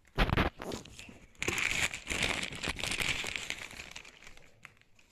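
A thin clear plastic wrapping bag crinkling and rustling as it is pulled off a speaker, with a short thump just after the start. The crinkling is densest in the middle and dies away near the end.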